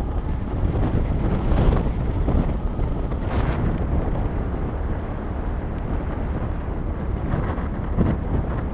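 Wind buffeting the microphone on the open deck of a bulk carrier under way: a steady low rumbling noise with a couple of brief stronger gusts in the first few seconds.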